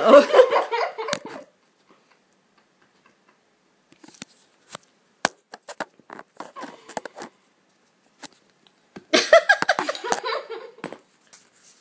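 Muffled laughing and spluttering from a person whose mouth is stuffed full of Maltesers, at the start and again near the end. In between, after a silent stretch, comes a run of small sharp irregular clicks and taps.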